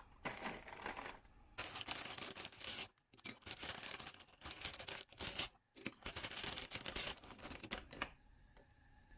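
Rustling and crinkling handling noise in uneven bursts with short pauses, stopping about eight seconds in.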